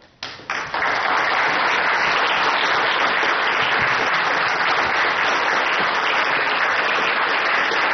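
An audience applauding. A dense, steady clapping starts about half a second in and holds evenly.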